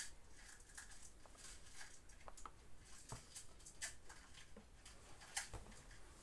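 Near silence with faint, scattered light clicks and taps as a hand handles a plastic cordless drill in its plastic carry case.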